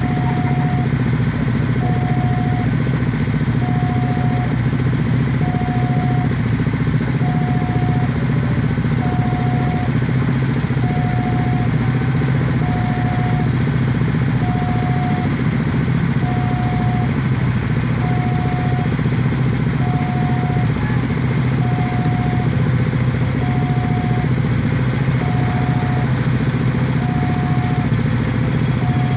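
Level-crossing warning alarm sounding a repeating tone about once a second, the signal that a train is approaching. Under it, motorcycle engines idle steadily.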